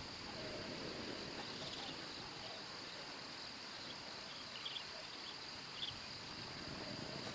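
Outdoor ambience with a steady, high-pitched, even insect chorus, and a few short faint chirps about halfway through.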